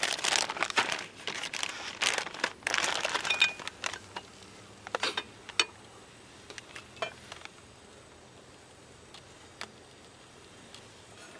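Crinkling and rustling of packaging being handled for about three and a half seconds, followed by a few scattered light clicks and taps.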